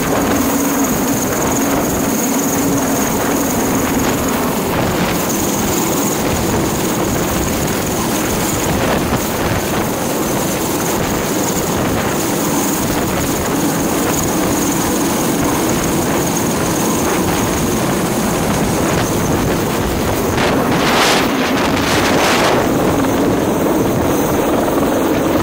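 Chinese Navy helicopter hovering low overhead: a steady, loud rotor and engine din with wind rushing over the microphone, and two louder gusts near the end.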